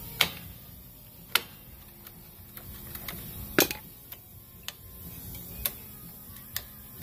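Metal pick clicking and snapping against the springs and shoes of a golf cart drum brake as a brake spring is pried loose: about seven sharp, irregular clicks, the loudest about three and a half seconds in.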